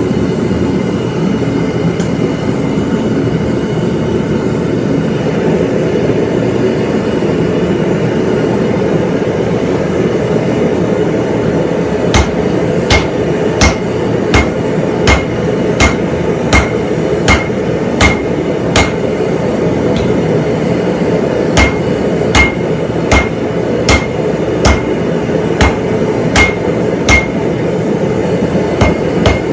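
Forge running with a steady rushing noise; partway through, hammer blows begin on hot steel at the anvil, forging a hot cut hardy, about one and a half ringing strikes a second in two runs with a short pause between.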